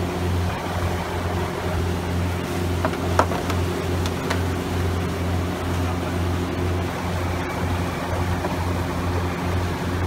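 A motor yacht's engine running steadily under way, a low drone with a wash of water alongside; a few sharp clicks sound about three seconds in.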